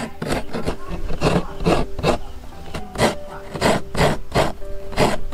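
Fresh coconut flesh being grated by hand on a coconut scraper, a metal blade on a wooden handle: a half coconut shell is drawn across the blade in repeated short scraping strokes, about two to three a second.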